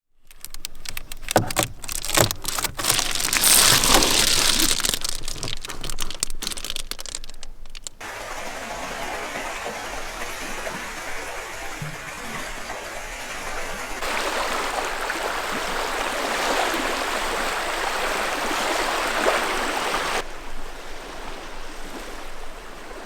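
Steady rushing water noise, like a stream or waves on a shore, heard in several spliced segments. The first part, about eight seconds, is crackly with many small clicks.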